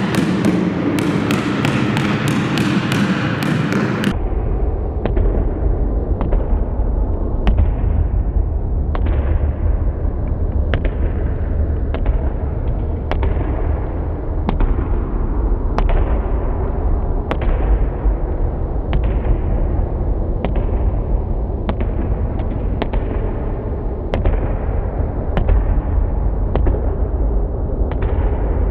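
Basketball dribbled low around and between the legs on a gym floor: repeated bouncing thuds that echo in the hall over a steady deep rumble.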